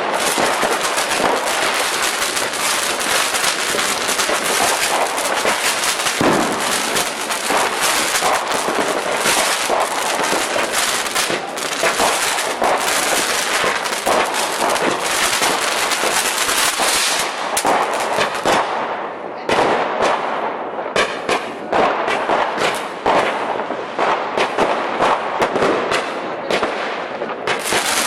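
Firecrackers and fireworks going off in a rapid, near-continuous crackle of sharp pops and bangs. After about 18 seconds the stream thins into separate clusters of cracks.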